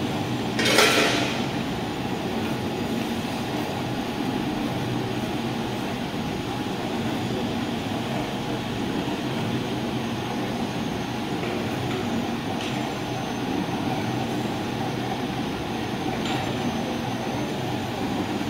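UCR-T1650 pallet stretch wrapping machine running: the turntable drive and film carriage give a steady mechanical hum. A short loud hiss sounds about a second in.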